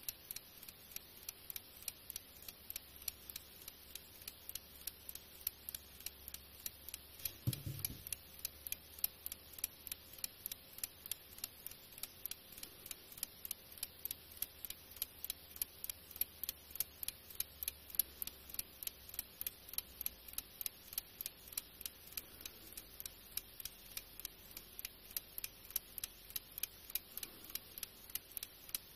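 Escapement of an old French alarm-clock movement ticking steadily as it runs. The movement runs only when laid flat and stops when stood upright, so it needs servicing. There is a soft low bump about seven and a half seconds in.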